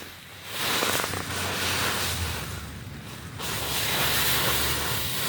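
Dry autumn leaves rustling and crunching as a dog burrows and jumps through a leaf pile, in uneven surges.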